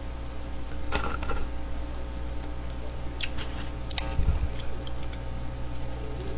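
Scattered small clicks and crackles of eating close to a microphone: chewing chicken and handling an aluminium soda can. A brief low thump comes just after the middle, and a steady electrical hum runs underneath.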